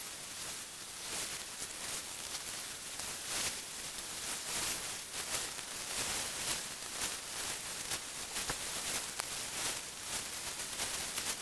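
A steady high hiss with dense crackling clicks throughout, like static.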